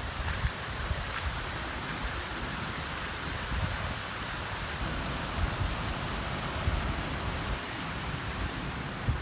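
Floodwater rushing in a steady hiss, with wind buffeting the microphone in uneven low rumbles.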